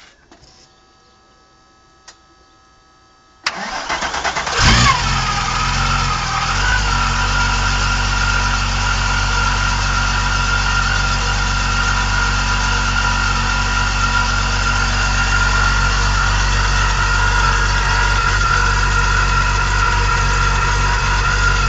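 Supercharged VW VR6 engine starting for the first time: after a few quiet seconds the starter cranks for about a second, the engine catches with a brief rev, then settles into a steady idle with a high whine running over it.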